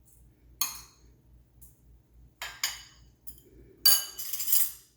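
A utensil clinking against a mixing bowl as grated carrot is added: a few separate ringing clinks, then a louder clatter of several clinks about four seconds in.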